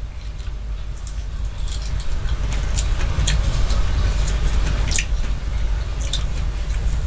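Close-miked eating of soft, ripe persimmon: scattered short wet clicks and squishes of chewing and smacking, over a steady low hum.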